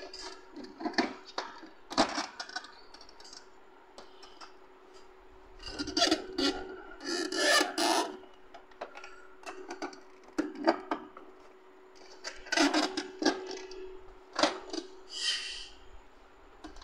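Plastic clicks, knocks and scraping from an Epson L3115 ink-tank printer's scanner unit being lowered and worked onto the printer body to seat it. The sounds come in scattered clusters, busiest about six to eight seconds in and again near the end, over a faint steady hum.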